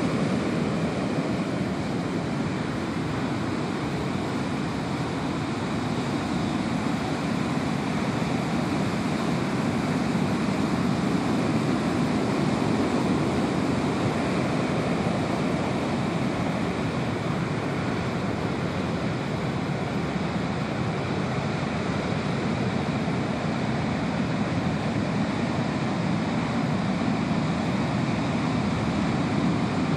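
Heavy ocean surf: large waves breaking and foaming wash sweeping up the sand, a steady rush that swells and eases gently.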